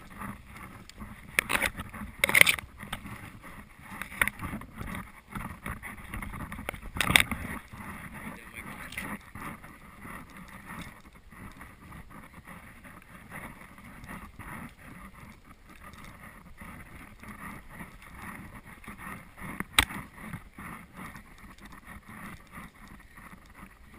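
Footsteps pushing through dry grass and brush, stems swishing and crunching against clothing and the bow, with a few sharper snaps about two seconds in, about seven seconds in, and once more later on.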